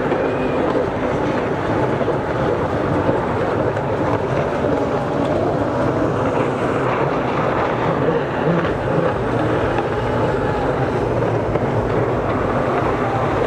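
Several racing jet skis (personal watercraft) running at speed, their engines making a steady, continuous drone mixed with water spray.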